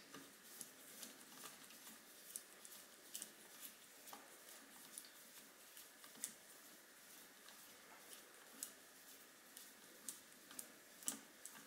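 Faint, irregular metallic clicks and ticks of a small hex key turning and seating in scope-ring screws, with a couple of sharper clicks about six seconds in and near the end.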